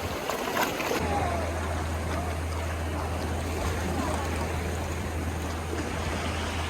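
Sea waves washing on a beach, with faint voices and a steady low hum that comes in about a second in.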